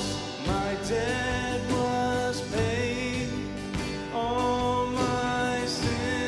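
Male solo voice singing a slow Christian worship song over acoustic guitar and instrumental accompaniment, with a wavering held note about halfway through.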